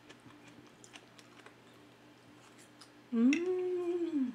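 A woman's closed-mouth hum, "mmm", while chewing a mouthful of macaroni salad: one drawn-out tone about three seconds in that rises, holds and falls away over about a second. Before it, only faint small clicks.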